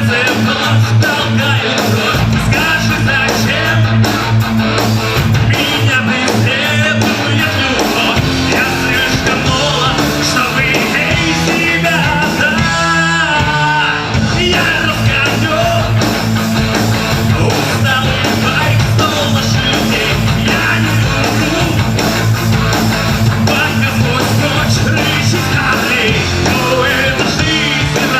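Rock band playing a song live, with guitar and singing. The low end drops out briefly about halfway through, then the full band comes back in.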